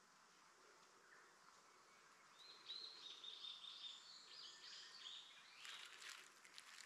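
Faint bird song starting about two and a half seconds in: a run of short, clear high notes, some held and some stepping in pitch. A brief burst of rustling clicks comes near the end.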